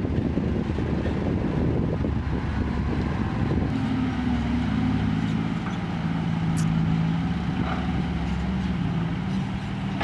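Diesel engine of a six-wheel Isuzu dump truck running as the loaded truck drives close by. A rough low rumble for the first few seconds gives way to a steady engine hum about four seconds in.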